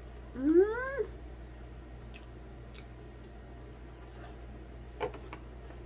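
A woman's closed-mouth "mmm" of enjoyment while chewing, rising in pitch, about half a second in. Faint mouth clicks from chewing follow, then a sharp plastic clack from the black plastic food container near the end.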